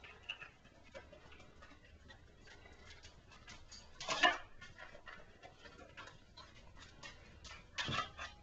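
A dog nosing and pawing a wooden puzzle board: light clicks and taps of its sliding wooden blocks and plastic pieces, with two louder bursts about four seconds in and near the end.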